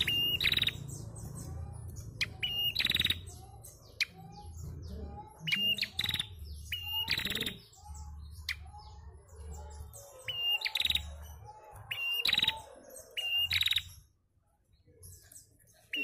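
Female prenjak calling: runs of short, sharp, high chirps with pauses between the runs. The calls stop about two seconds before the end.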